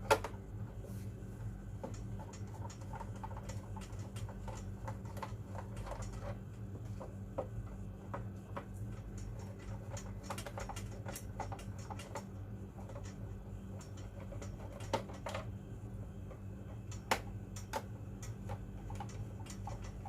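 Screwdriver backing screws out of a UPS's plastic case: irregular small clicks and scrapes of the bit on the screws, with a sharp click at the very start and a few louder ones later, over a steady low hum.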